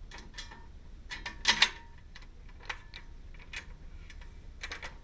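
Metal clicks and knocks of an RV awning mounting bracket being test-fitted against its support arm, with a cluster of louder knocks about a second and a half in.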